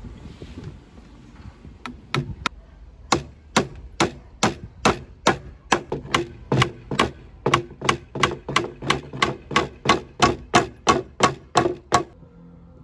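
A hammer striking wood in rapid, even blows, about three a second. A few spaced taps start about two seconds in, and the blows stop abruptly near the end.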